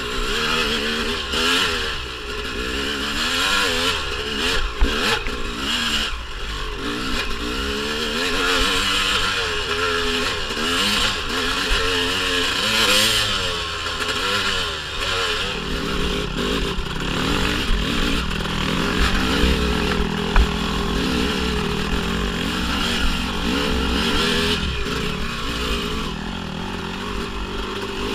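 1997 Honda CR250's single-cylinder two-stroke engine revving up and down as the dirt bike is ridden over a rough trail, with clattering and a few sharp knocks. The revs swing up and down quickly through the first half, then hold steadier and lower from about halfway.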